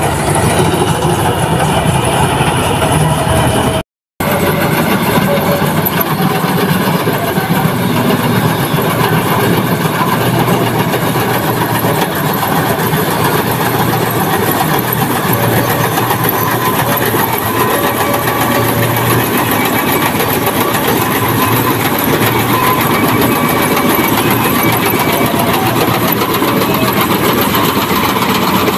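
Diesel engine of a John Deere 5075E tractor with a Balkar combine harvester mounted on it, running steadily under load as it works through deep paddy-field mud. The sound cuts out for a split second about four seconds in.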